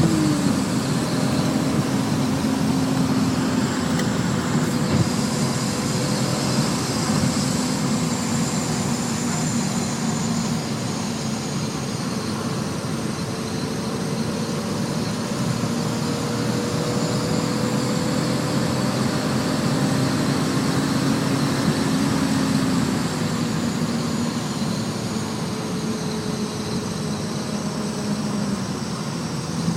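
E36 BMW M3's straight-six engine running steadily at high speed, with heavy road and wind noise. The engine pitch holds nearly level, sags slightly in the second half, then drops suddenly at the very end as the revs fall.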